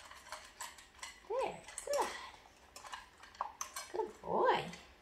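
A dog whining in short, high whimpers that rise and fall in pitch, three times, with light metallic clinks around them.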